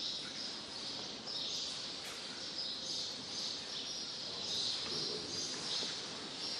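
Many small birds chirping together in a dense, continuous chorus that swells and fades in waves.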